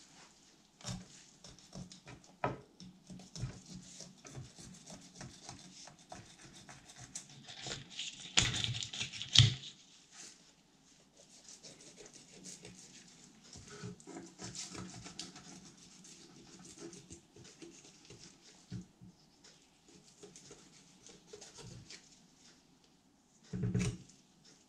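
Fillet knife cutting along the back of a corvina on a wooden cutting board: soft scraping and ticking as the blade works down along the bones. There is a louder run of scraping about eight to nine seconds in, and a short knock near the end as the fish is handled on the board.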